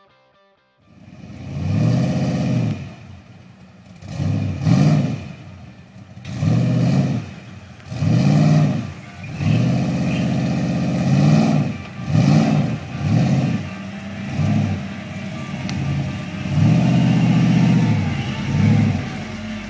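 Jeep engine revving hard in about ten separate surges, each rising and falling in pitch, while a stuck Jeep is pulled out of a mud hole on a tow strap.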